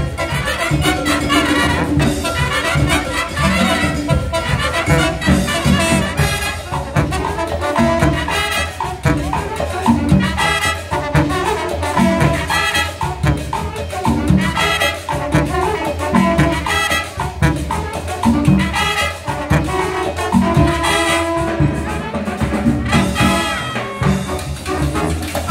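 Marching band playing a Latin-style tune: trumpets and trombones with a sousaphone, over a steady beat.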